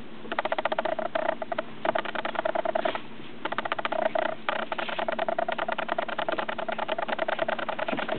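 Squeaker in a plush dog toy squeaking over and over as toy poodles chew and tug it, in quick bursts with brief pauses.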